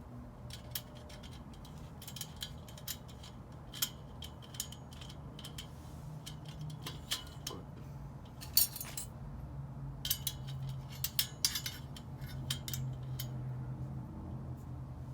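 Dish drying rack parts clicking and clinking as they are handled and fitted together. The clicks come at irregular moments, bunching up from about eight to twelve seconds in, over a low steady hum.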